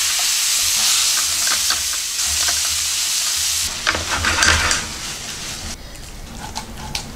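Minced beef and pork searing in oil in a frying pan, sizzling loudly as a spatula presses on it. About four seconds in this gives way to a spatula stirring and scraping the thick meat sauce in the pan, then quieter, with a few light clicks near the end.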